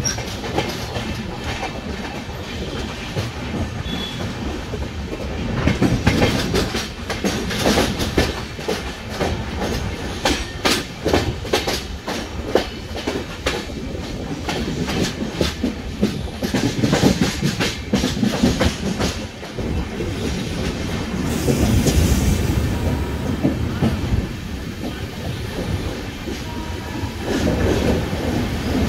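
Passenger train running on the track, its wheels clattering over rail joints in a continuous, irregular run of clicks over a steady rumble, with a brief high hiss about two-thirds of the way through.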